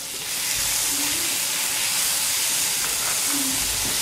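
Chopped onion frying in hot oil in a steel kadhai, a steady sizzle that swells about a third of a second in and then holds.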